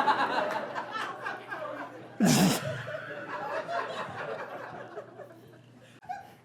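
Audience laughing, with one loud laugh bursting out about two seconds in and sliding down in pitch. The laughter then dies away toward the end.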